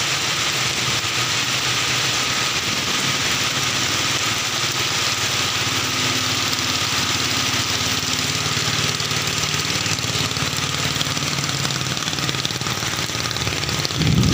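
Heavy rain falling steadily on a river, with a small motorboat's engine running underneath. A louder low rumble comes in near the end.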